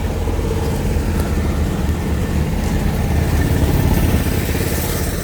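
An engine running steadily with a low rumble, swelling slightly about three to four seconds in.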